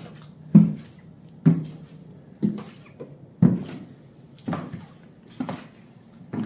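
Black glitter high heels with ankle straps clacking on a hard floor as the wearer walks, about one step a second.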